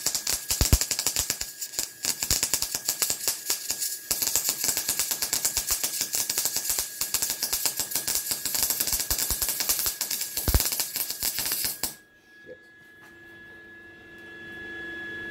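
MIG welder arc crackling steadily while filling a plugged hole in steel with weld, stopping abruptly about twelve seconds in and leaving a steady hum.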